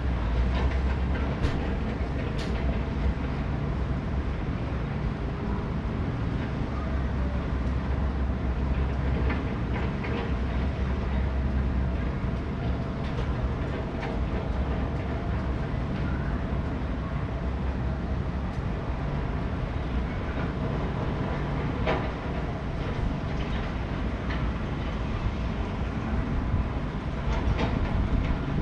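Steady low rumble of a vehicle in motion, with scattered clicks and rattles.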